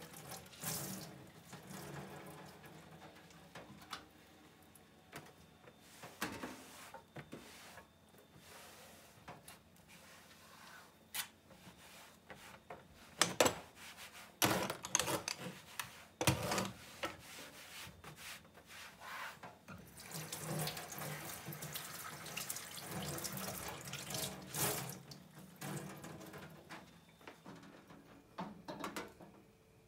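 Kitchen tap running into a stainless steel sink as a cloth is rinsed and wrung, with rubbing and a few sharp knocks of a glass jar and kitchen things being handled near the middle; the water runs again later on.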